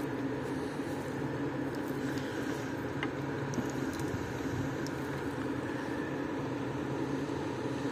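Steady mechanical hum with a few faint, light ticks.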